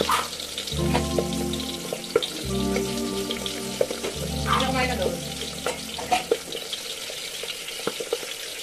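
Marinated milkfish (daing na bangus) frying in oil in a covered aluminium wok: a steady sizzle with scattered pops and crackles. Background music with low sustained notes plays over it.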